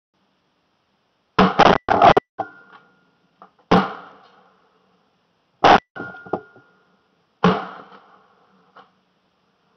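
A series of shotgun shots fired at flying teal, heard from very close up, about five loud reports a second or two apart, some followed by a short fading echo, with smaller knocks between them.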